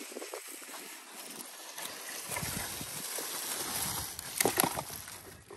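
Footsteps crunching and rustling through fallen leaf litter, with a cluster of louder crunches about four and a half seconds in.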